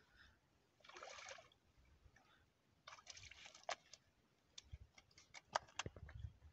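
Faint splashing of a hooked fish thrashing in shallow water at the bank, in two short bursts about a second and three seconds in. A few sharp clicks follow in the second half.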